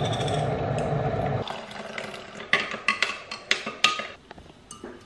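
Milk pouring from a carton into a glass for about a second and a half, then a metal teaspoon clinking against the glass several times, ringing briefly, as the coffee is stirred.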